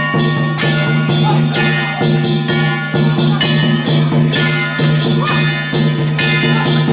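Taiwanese temple-procession troupe music: loud clashing percussion striking about twice a second over a sustained pitched melody.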